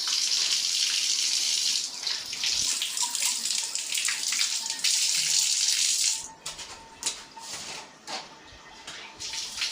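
Water running hard from a bathroom tap or fitting, with a brief dip about two seconds in. It is shut off about six seconds in, leaving scattered drips and small splashes.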